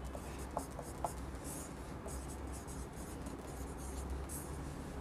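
Marker pen writing on a whiteboard: a string of faint, short scratchy strokes, with a few light ticks in the first second.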